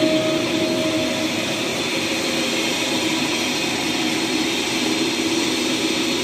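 Large vertical lathe running steadily, turning a big cylindrical workpiece on its table with a tool cutting inside the bore. A thin whine sounds at first and stops about a second in, under a steady mechanical noise.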